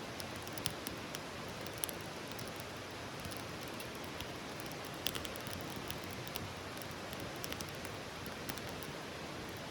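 Wood campfire burning: a steady hiss with irregular sharp crackles and pops, one louder pop about five seconds in.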